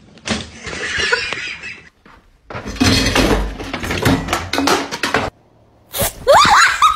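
Clattering and knocking of kitchen things, dense sharp knocks for a few seconds, as a cat leaps about on a counter among a metal tray and a jug. Near the end come a few short, high, rising cries.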